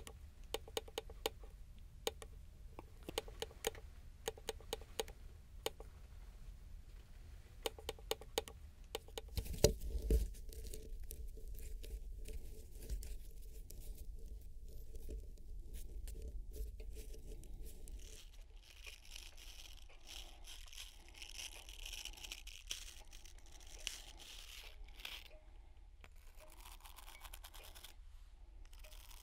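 Small objects close-miked and played as percussion in an experimental piece. A run of light taps and clicks gives way to a louder knock about ten seconds in, then a low hum with a faint held tone. In the second half it turns to dry scratching and rustling.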